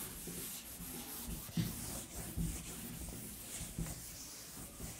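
Faint scratching and rubbing of handwriting, a pen or marker moving over the writing surface, with a few soft taps.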